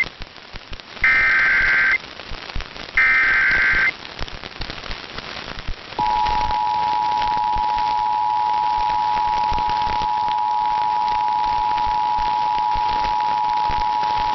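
Emergency Alert System broadcast tones over radio: two short bursts of the shrill warbling SAME header data, about a second long and a second apart. About six seconds in, the steady two-tone EAS attention signal (853 and 960 Hz together) starts and is held for about eight seconds, over a hiss of radio static.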